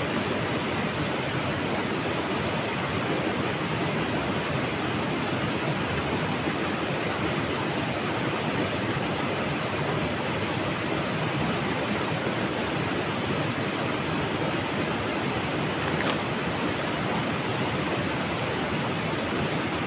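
River water rushing over rocks: a steady, even rush.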